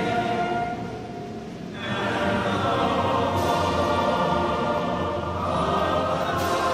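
A national anthem sung by a choir, held sustained chords; the voices drop back about a second in and swell again just before two seconds.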